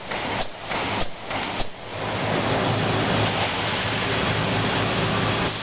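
Automatic wire mesh welding machine cycling, with a sharp weld stroke about every 0.6 seconds, close to its rated 110 strokes a minute. About two seconds in, the strokes stop and give way to a steady hiss with a low hum.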